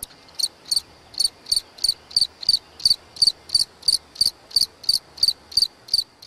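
A cricket singing: short high-pitched chirps repeated evenly, about three a second.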